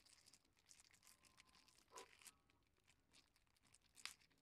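Faint crinkling and rustling of thin clear plastic as a bag and plastic wrapping are handled around a small package, with a few sharper crackles about two seconds in and near the end.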